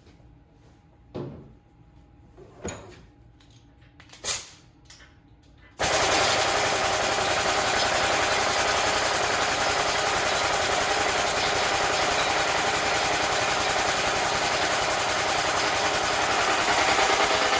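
A few short metallic knocks and clanks, then a loud machine starts abruptly about six seconds in and runs steadily with a fast, even pulsing.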